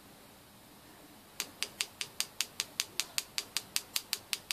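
Rapid, even clicking, about five clicks a second, starting about a second and a half in, as the compressor wheel is spun on the magnetic balancing jig.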